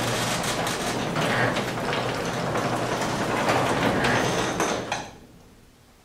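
Sectional overhead garage door running open, its rollers clattering along the tracks over a steady hum, and stopping about five seconds in. The door has new torsion springs and cables and has just been greased.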